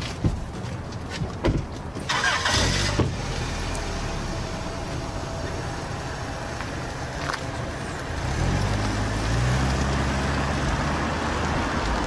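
Chrysler Sebring sedan: a door shuts, then about two seconds in the engine cranks and starts. It runs steadily, then revs up with a rising pitch as the car pulls away near the end.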